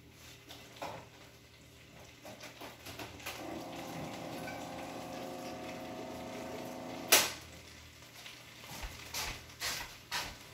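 Hot water running from a kitchen tap into a nearly empty stir-fry sauce bottle for about four seconds, then cut off with a sharp click. A few light clicks and knocks of kitchen things follow.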